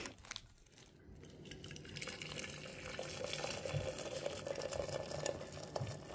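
Water poured from a kettle into a glass teapot, a steady splashing pour that builds up over the first couple of seconds and then holds.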